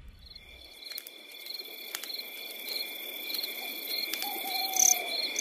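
Insects chirping in a steady pulse, a little under twice a second, over a continuous high trill, fading in and growing louder. A few scattered clicks and one falling call about four seconds in.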